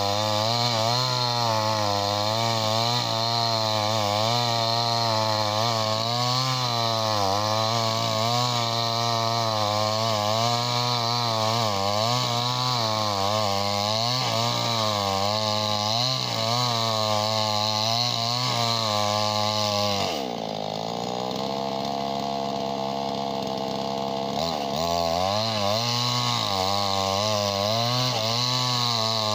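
58cc two-stroke chainsaw with a 20-inch bar running at high speed while cutting wood, its pitch wavering under load. About two-thirds of the way through it drops to a lower, steadier note for about four seconds, then revs back up and cuts again.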